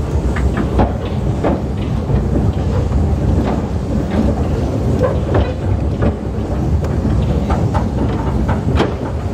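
Narrow-gauge train running slowly along the track: a steady low rumble with irregular clicks and knocks from the wheels on the rails.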